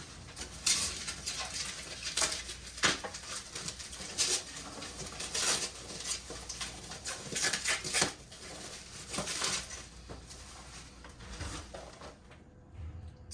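Packaging rustling and crinkling in irregular bursts as a boxed Funko Pop figure is unwrapped and handled.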